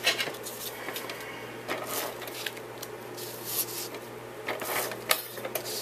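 Cardstock pieces being handled and fitted together: paper rustling and sliding, with a few light taps and clicks.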